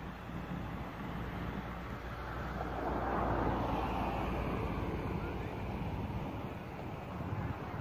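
Low, steady drone of a boat engine out on the water, under a rushing noise that swells about three seconds in and then eases off.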